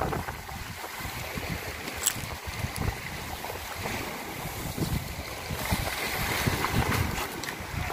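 Wind buffeting the microphone in uneven gusts, with a few sharp clicks.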